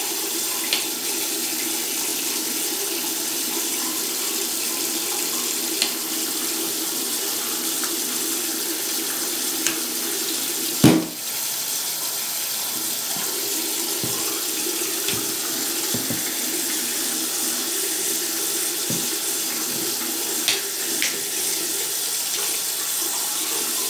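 Bathroom tap running steadily into a sink, with a few light knocks and one louder thump about halfway through.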